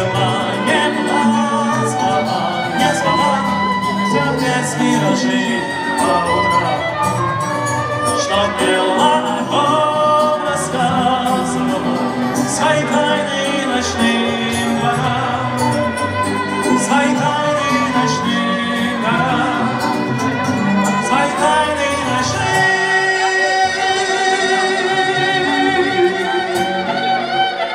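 A song with guitar accompaniment under a gliding melody line; PANN takes the melody for singing. About three quarters of the way through, the low accompaniment drops out and a lighter, higher texture carries on.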